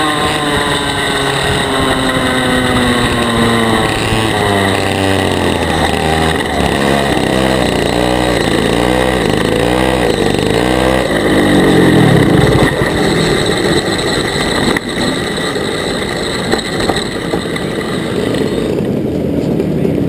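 125cc two-stroke TAG kart engine, falling in pitch as the kart slows, then running at low revs with its pitch wavering among other kart engines nearby. A brief louder surge comes about twelve seconds in, and the higher part of the engine sound drops away near the end.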